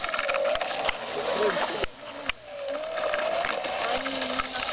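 Motor and propeller of a Skyartec Pitts S-2A RC biplane running as it taxis on the ground, a whine that wavers up and down in pitch with the throttle and dips briefly about two seconds in.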